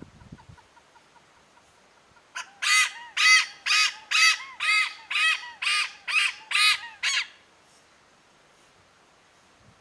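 Malabar pied hornbill calling: a run of about ten loud notes, roughly two a second, each rising and falling in pitch. It starts about two and a half seconds in and stops after about five seconds.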